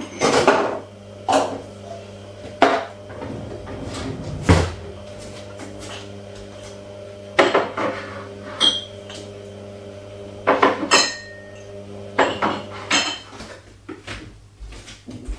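Clean plastic bowls and glasses clattering and clinking as they are put away into kitchen cupboards, in a string of irregular knocks with a couple of short glassy rings. A steady low hum runs underneath for most of the time.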